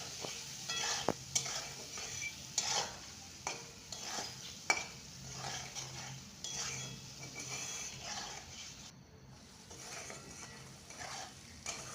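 Spice paste sizzling in oil in a kadai while a spatula stirs and scrapes it, with irregular clinks of the spatula against the pan. The masala is being fried down until cooked.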